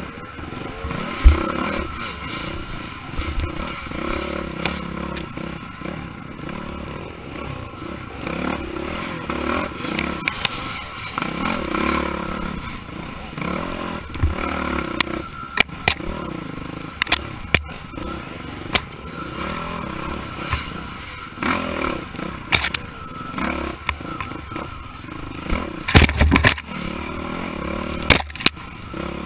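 Dirt bike engine revving up and down as it climbs rough forest single track, heard from the rider's helmet. Sharp knocks as the bike hits roots and logs break in about a second in, several times mid-way and twice near the end, with brush scraping past.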